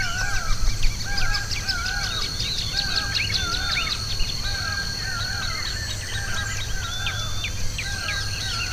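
Several wild birds calling together. One repeats a pair of arched, rising-and-falling notes about once a second, while other birds add quick high chirps over a steady high-pitched tone.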